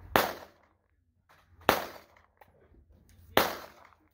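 Three pistol shots, evenly spaced about a second and a half apart, each dying away quickly.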